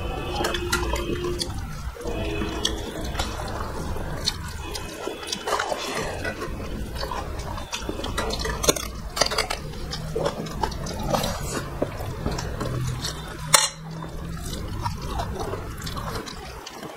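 Close-up eating sounds of two people eating rice and curry by hand: wet chewing and mouth smacks, with fingers mixing rice on steel plates, as a dense run of small clicks. One sharper click about thirteen and a half seconds in.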